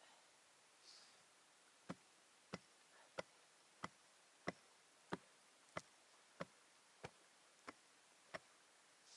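Hatchet chopping: eleven sharp, evenly spaced strikes, about one and a half a second, starting about two seconds in.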